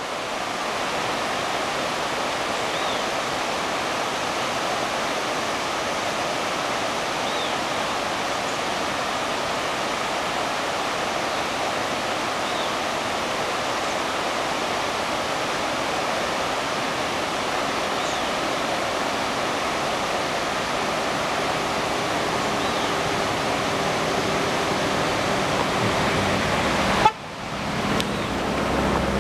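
River rapids rushing steadily over a rocky bed, an even roar of water. A faint low hum joins in the second half, and there is a brief knock near the end.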